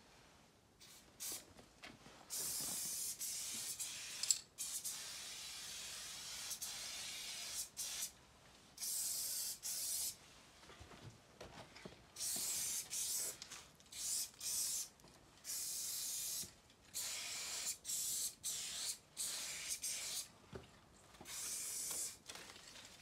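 Aerosol spray-paint can hissing in a run of bursts, some lasting a few seconds and others short, as paint is sprayed. There is a sharp click about four seconds in.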